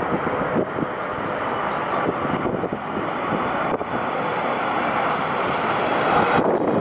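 Boeing 777-300ER's GE90 turbofan engines on final approach: a steady jet roar that grows a little louder near the end as the airliner draws closer.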